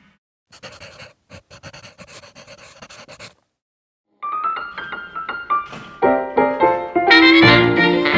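About three seconds of quick, rhythmic breathy huffs, then a short gap, then upbeat background music on electric piano that grows fuller and louder with brass joining.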